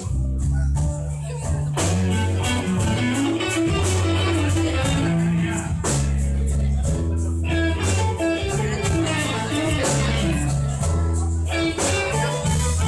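A slow blues played by a band: guitar lead lines over a steady bass and regular percussive hits.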